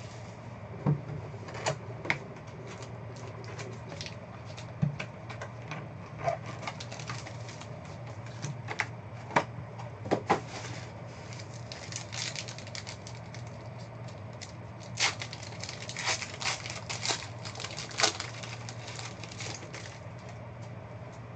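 Hands handling trading card packs: scattered taps, clicks and crinkles of foil pack wrappers and cards on a table, busiest in the second half, over a steady low hum.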